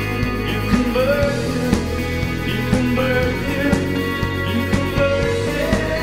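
Rock band music with guitar, the drums keeping a steady beat of about two hits a second under sustained notes that bend in pitch.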